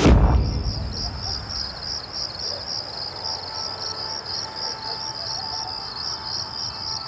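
A deep boom right at the start, dying away over about a second, then steady, rapid, rhythmic cricket chirping over a faint sustained tone.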